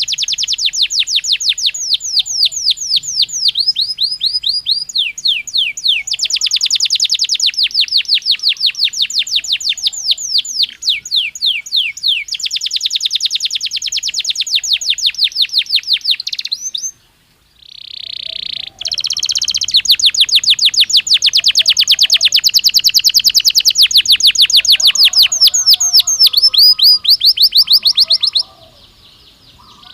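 Belgian canary singing: long trills of rapid, repeated notes in phrases a few seconds long. The song breaks off briefly about two thirds of the way through and stops again shortly before the end.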